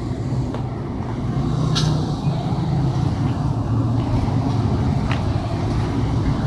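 Steady low rumble of a motor vehicle engine running close by, with a couple of faint clicks.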